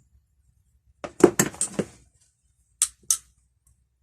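Steel pliers clattering against each other and onto the bench as they are handled, a quick run of metal knocks, then two short sharp clicks.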